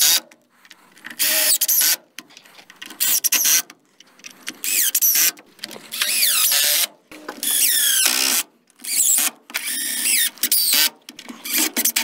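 Power drill driving screws into wood framing in a series of short runs, eight or nine in all, the motor's pitch sliding up and down within each run.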